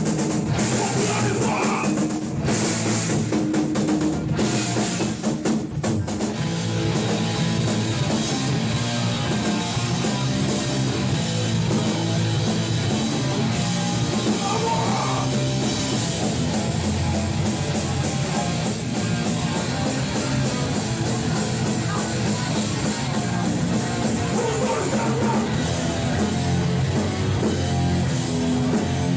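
Hardcore punk band playing live, loud and dense, with a drum kit and electric guitars.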